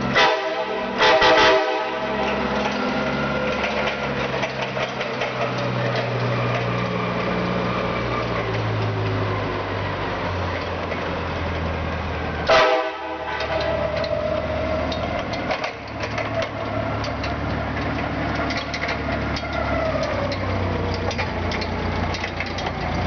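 RC5 train horn mounted on a forklift sounding three short blasts: two right at the start, about a second apart, and one about halfway through. Between the blasts the forklift's engine runs, its pitch drifting slowly down.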